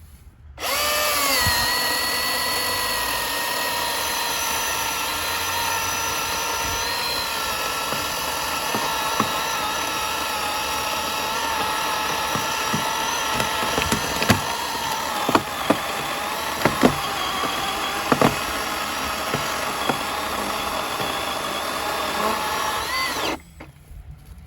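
Milwaukee Fuel cordless chainsaw, powered by a 6 Ah high-output battery, cutting through a log. Its motor runs with a steady whine that dips in pitch as the chain bites just after it starts, with several sharp snaps in the middle of the cut, and stops suddenly near the end.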